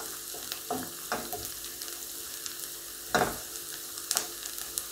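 Sliced onion and green chillies sizzling in hot oil in a pan while a wooden spatula stirs them, scraping and knocking against the pan several times, the loudest knock about three seconds in.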